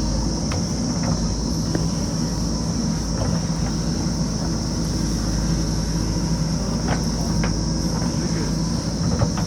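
JCB backhoe loader's diesel engine running steadily, with a few short knocks near the start and around seven seconds in. A constant high insect buzz runs underneath.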